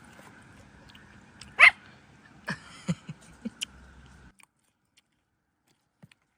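A dog gives a single short bark about a second and a half in, followed by a few short knocks and clicks. The steady background then cuts off abruptly just after four seconds.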